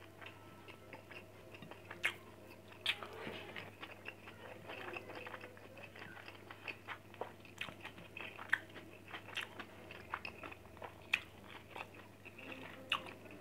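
Close mouth sounds of a person eating grilled fish and rice by hand: quiet chewing with many small, irregular clicks and smacks.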